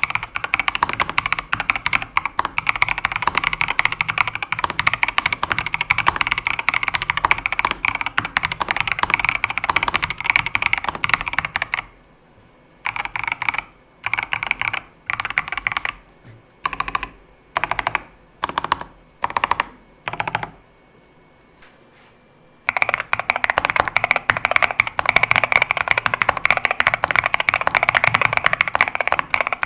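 Skyloong GK75 mechanical keyboard being typed on quickly, a dense run of key clacks. About twelve seconds in, the typing breaks into eight or so short separate bursts of keystrokes, pauses briefly, then resumes as fast continuous typing.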